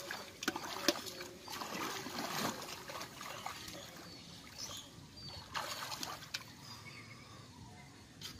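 Hands sloshing and splashing in shallow muddy water while groping in the mud for fish, in irregular bursts with a couple of sharp slaps about half a second and a second in.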